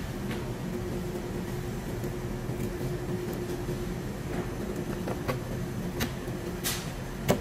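Steady machine hum with a faint constant tone. Over it come a few light clicks and taps, mostly in the second half and sharpest near the end, from a boning knife working against the plastic cutting board and the chicken bones.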